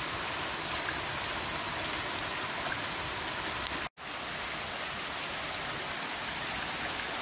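Steady rain falling, with the sound cutting out for a moment about halfway through.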